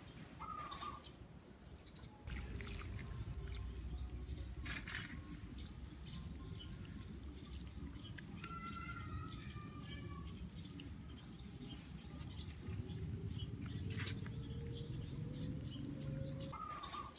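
Water sprinkling from a watering can's blue plastic rose onto loose soil, starting about two seconds in as a steady splashing hiss. A bird chirps briefly near the start.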